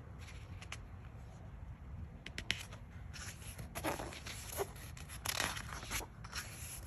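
Paper pages of a book handled and turned by hand: a few light ticks, then dry rustling and sliding of paper with a page flipping over about four to six seconds in.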